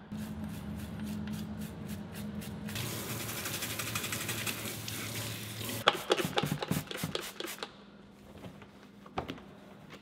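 A toothbrush scrubbing a plastic dishwasher vent in a stainless steel sink in quick repeated strokes. Then a kitchen faucet runs water into the sink for about three seconds, followed by a few sharp knocks as the vent is handled. It drops low near the end, with one click.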